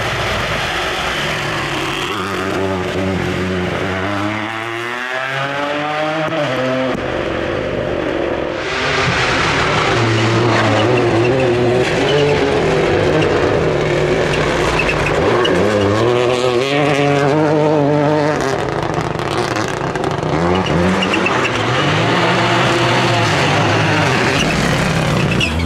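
Toyota GR Yaris Rally2 rally car's turbocharged 1.6-litre three-cylinder engine revving hard and rising and falling through gear changes as it passes, several times over. On the loose gravel stage its tyres throw up gravel as it slides through the corner.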